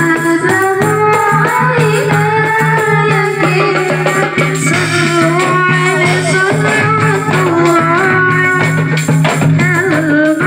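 Marawis ensemble performing: hand drums and rattling percussion under a female voice singing a wavering, ornamented melody.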